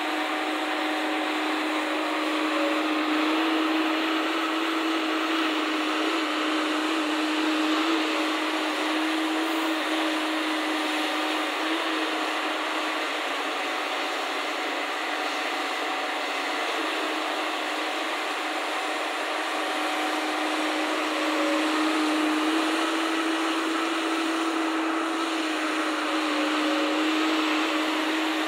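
Engine of a JCB tracked excavator running steadily under working load, a continuous mechanical drone with a low hum that shifts slightly in pitch now and then as the boom moves.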